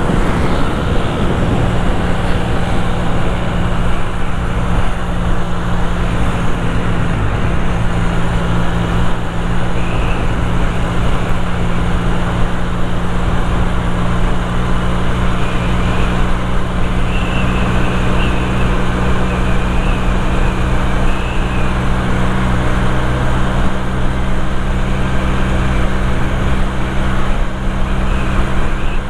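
A 1980s Honda motorcycle's engine running at a steady cruise, holding an even note throughout, over road and traffic noise.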